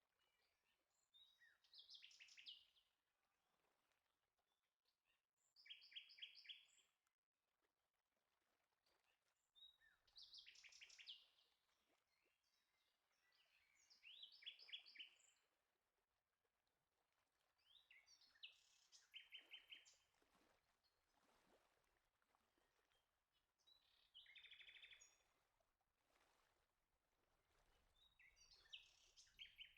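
Faint birdsong: short phrases of rapid chirps, each about a second long, repeated every three to four seconds.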